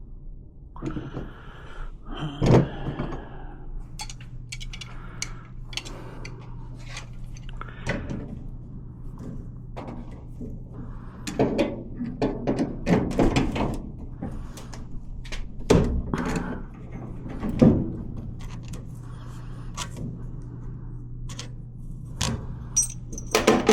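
Irregular clunks, knocks and clicks of hand tools against metal furnace parts as the gas valve is worked loose, over a steady low hum.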